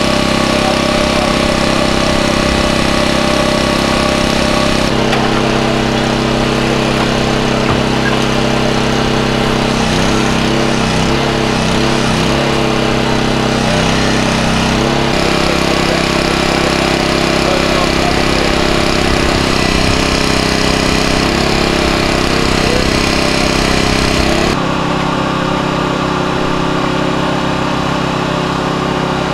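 Small engine of a hydraulic rescue-tool power unit running steadily, driving the jaws of life through their hoses. Its tone shifts abruptly about five, fifteen and twenty-five seconds in.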